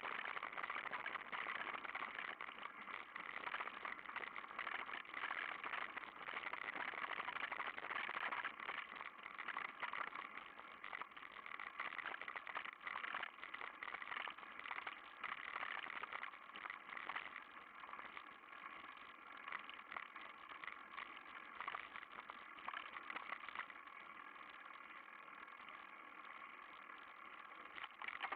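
Mountain bike rolling along a gravel track: the tyres crunch over loose stones and the bike rattles over the bumps, with many small clicks, a little quieter in the last few seconds.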